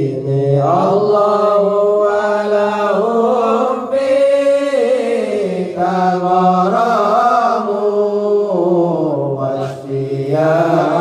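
A group of men chanting Arabic sholawat, devotional praise of the Prophet Muhammad, in unison, led by a singer on a microphone. The notes are long and slide up and down in pitch.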